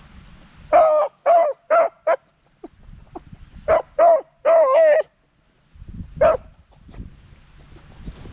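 Beagle hollering in short baying barks: a quick run of four, then three more with the last held a little longer, and a single one near the end.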